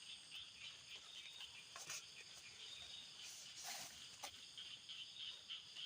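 Faint, steady high-pitched chorus of insects, typical of crickets, with a few soft brief rustles or taps in the middle.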